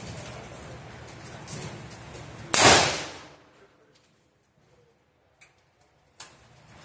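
A single gunshot about two and a half seconds in: one sharp crack with a short ring-off.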